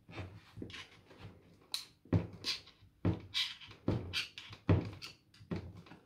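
Screwdriver and hands working on a submersible pump's plastic housing and shaft seal, pushing the seal into place: a string of irregular small knocks, clicks and scrapes of metal on plastic.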